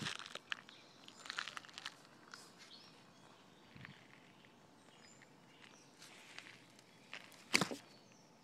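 Close handling noise around a small wooden ballista: light rustles and scattered clicks, then one sharp snap near the end, the loudest sound.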